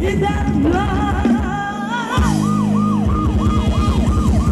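Live Thai ramwong dance band music with drums and bass. A melody is played over the first two seconds; then the drums drop out briefly, and a siren-like electronic sweep begins, falling in pitch about three times a second over the returning beat.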